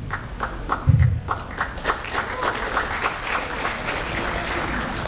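Audience applauding: a few separate claps that build into steady clapping, with a short voice about a second in.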